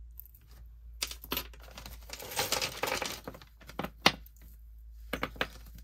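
Metal jewelry chains and clasps clinking and rustling as necklaces are handled on a table, with scattered light clicks, a stretch of rustling around the middle and a sharper click about four seconds in.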